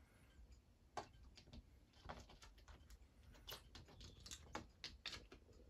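Faint, irregular small clicks and ticks: a single click about a second in, then a busier run of them over the next few seconds.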